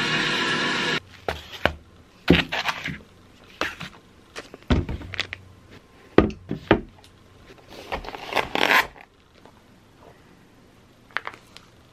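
Groceries being unpacked onto a table: plastic food packets crinkling and rustling, and cartons and packs set down with thuds and scrapes in irregular bursts. The loudest are two thuds around the middle.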